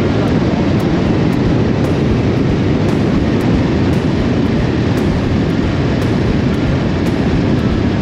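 Motorcycle at road speed: a loud, steady rush of wind, engine and tyre noise that holds unchanged throughout.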